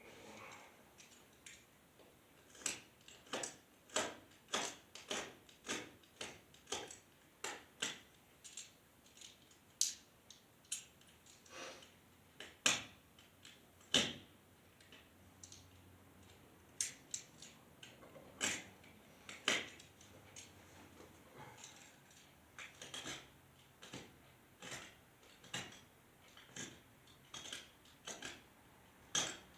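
Sharp metallic clicks and clinks from hand tools and steel fasteners being worked, coming in runs of about two a second with short pauses.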